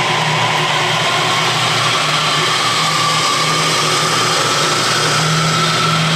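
Clausing horizontal milling machine running on its electric motor: a steady hum under a whine from the variable-speed pulley drive that climbs slowly in pitch as the speed-control handwheel is turned.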